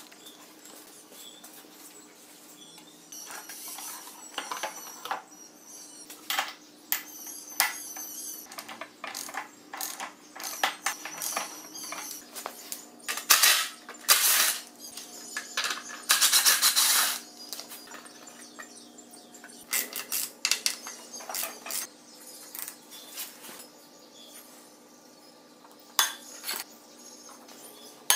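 Hand tools clinking and knocking on metal motorcycle parts as the front end is taken apart, with a few short runs of a cordless drill about halfway through. A faint low hum runs underneath.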